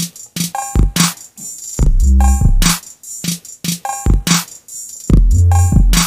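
Instrumental hip hop beat: drum-machine kicks and snare hits in a steady pattern with short synth stabs, and a long, loud low bass note about two seconds in and again about five seconds in.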